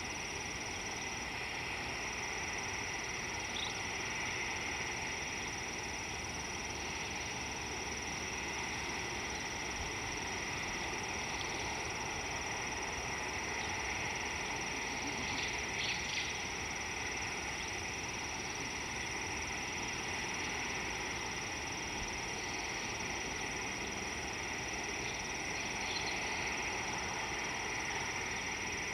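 Steady insect chorus over a constant background hiss, with a steady high whine and a few faint brief high sounds scattered through it.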